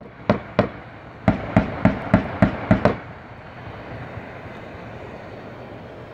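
Gunfire: two shots, then a run of about seven shots at roughly three a second, stopping about three seconds in.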